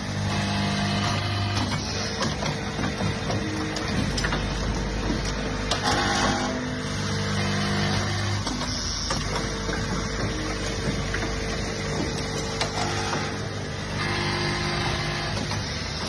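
Automatic hose assembly and crimping machine running: a steady mechanical hum with repeating on-off steps as it cycles, and two short bursts of hiss.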